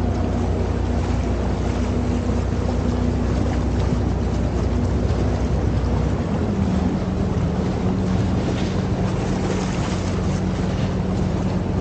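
A boat's engine running steadily under wind noise on the microphone and rushing water. About six seconds in, the engine's note shifts.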